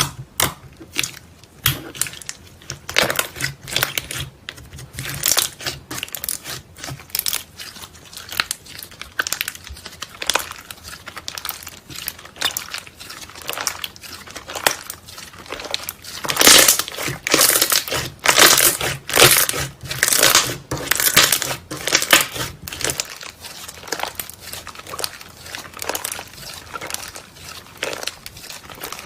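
Hands squishing, pressing and stretching slime: an irregular run of short pops and clicks, several a second, louder for a stretch past the middle.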